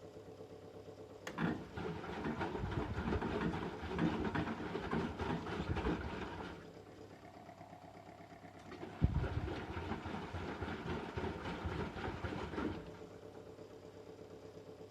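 1997 Merloni-built eurotech EW 450 washing machine tumbling its drum in two bursts: a click and about five seconds of motor running with water churning, a pause of a couple of seconds, then a thump and about four more seconds of running before it stops, the start-stop tumbling of a wash or rinse stage.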